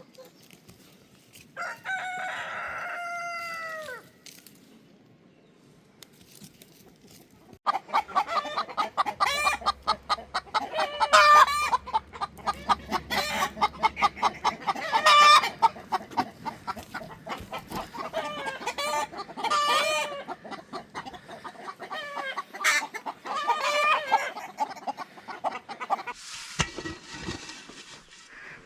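A rooster crows once, about two seconds in; from about eight seconds on, chickens cluck and call in quick, closely packed calls.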